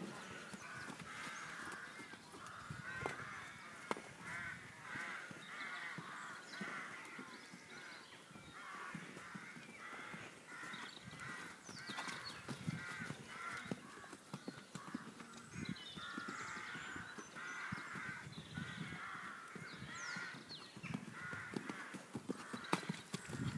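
Crows cawing over and over in the background, with the dull thuds of a horse's hooves cantering on soft arena footing.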